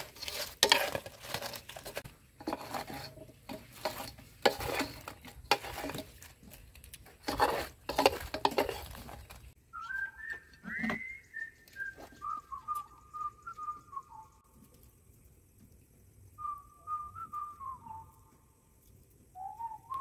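A spatula scraping and knocking against a wok as fried chicken wings are tossed in a thick chili sauce, in quick, uneven strokes. About halfway through the stirring stops, and a few short whistled notes that step down in pitch follow in three groups.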